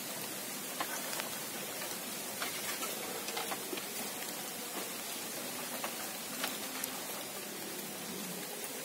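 Steady rain falling on creek water and the surrounding foliage: an even hiss flecked with sharp taps of drops landing close by.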